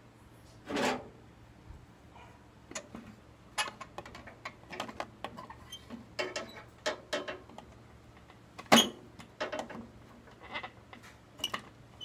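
Hand and tool handling noises on a microwave oven's control board as its fuse is being pulled out: a string of sharp clicks, taps and scrapes, with a longer, louder scrape just under a second in and the loudest knock near nine seconds.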